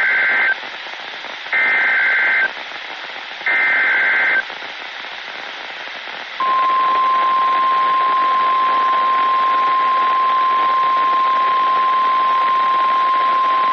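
NOAA Weather Radio emergency alert: three harsh, buzzy bursts of SAME digital header data, about a second each and two seconds apart, then about six seconds in the steady 1050 Hz warning alarm tone begins and holds, all over radio static hiss. The tone signals that a warning, here a tornado warning, is about to be read.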